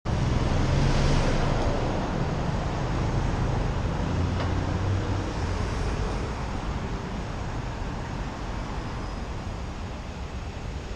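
Road traffic at a city junction: the engines of a bus and a van close by over a steady rumble of road noise. It is loudest about a second in, rises again around the middle as the van passes, and eases off slowly.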